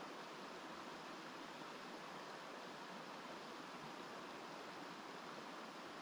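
Mountain river flowing: a steady, even rush of water with no change in level.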